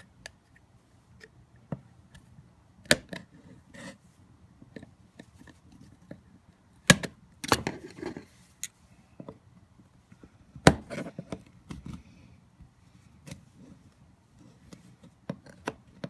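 Hand tools clicking and knocking against a universal CV boot clamp as its tabs are bent over to lock the wire band in place. The clicks are sharp, scattered and irregular, a few seconds apart, with softer handling noise between.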